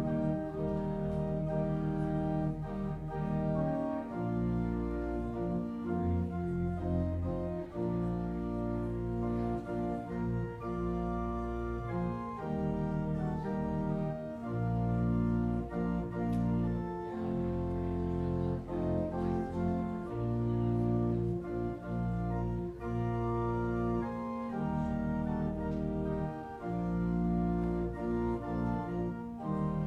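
Organ music: long held chords changing every second or two.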